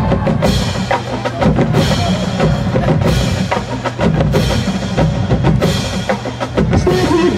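Marching band drumline playing a percussion feature: bass drums and snares beating a dense rhythm, with repeated cymbal crashes about once a second.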